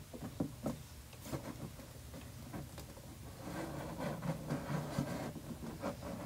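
A popsicle-stick and cardboard platform being pressed and shifted into place in a glass tank: a few light wooden clicks, then soft rubbing and scraping.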